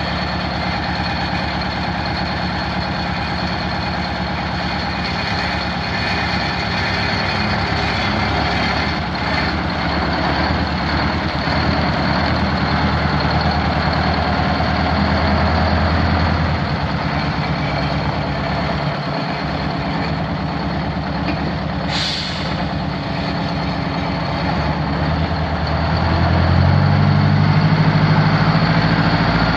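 Detroit Diesel 8V92 two-stroke V8 diesel engine running steadily. The note shifts a little past halfway and rises near the end. A short, sharp air hiss comes about three-quarters through.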